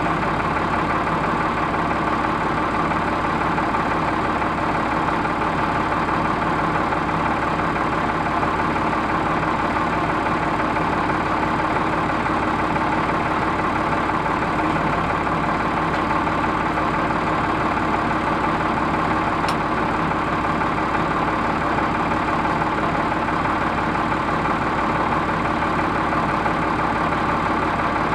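Ford 3600 tractor engine idling steadily, close by.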